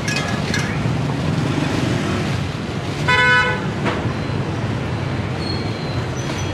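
A vehicle horn gives one short toot of about half a second, roughly three seconds in, over steady street traffic noise.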